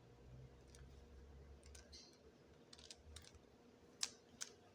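Faint scattered clicks of a Rubik's cube being handled and its layers turned, with two sharper clacks near the end.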